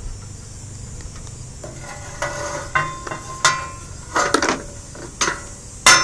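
A metal ladder being handled on a bicycle cargo rack: a run of sharp metallic clinks and knocks starting about two seconds in, some ringing briefly. The loudest comes near the end.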